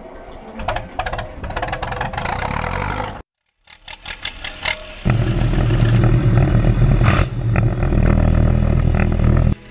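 Diesel tractor engine starting up and running loudly and steadily with its exhaust stack smoking, from about five seconds in until it cuts off just before the end. Before that comes clattering, broken by a brief silence about three seconds in.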